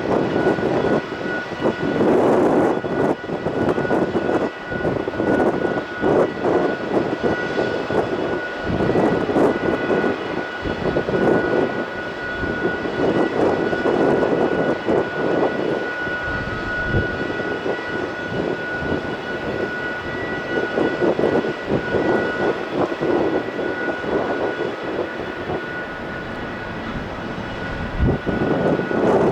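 Airbus A330 freighter's jet engines running on the landing approach: a steady high whine over a rough rumble. Gusts of wind buffet the microphone in irregular surges throughout.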